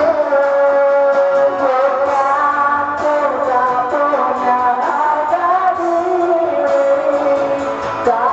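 A man singing a song into a microphone over musical accompaniment with guitar, in long held, wavering notes.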